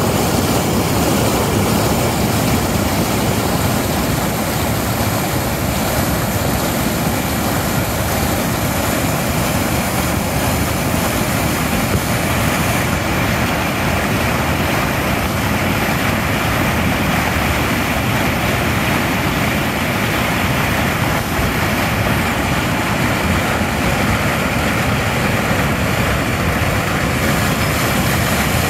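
Fast brown water rushing out of concrete culvert outlets and spilling over a sloped concrete weir into churning white water: a loud, steady rushing with no letup.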